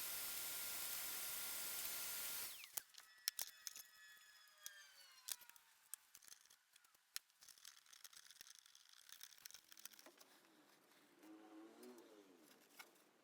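A steady hissing rush of air cuts off about two and a half seconds in. A falling whine follows as something spins down, then scattered small clicks and taps of parts being handled.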